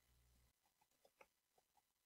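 Near silence, with a scatter of faint, short clicks of computer keys being typed.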